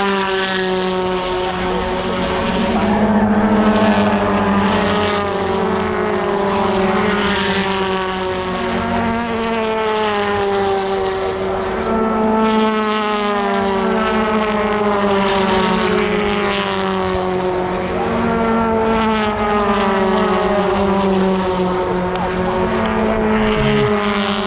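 A stream of British Touring Car Championship race cars passing at speed one after another, their 2.0-litre turbocharged four-cylinder engines at high revs. Each engine note falls in pitch as the car goes by, several times over.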